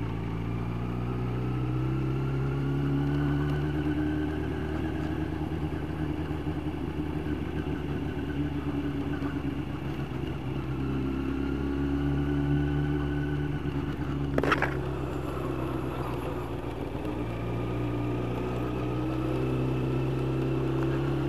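Yamaha YZF 1000cc inline-four motorcycle engine running at low road speed, heard from the rider's seat, its pitch rising and falling gently with the throttle. A brief sharp knock about two-thirds of the way through.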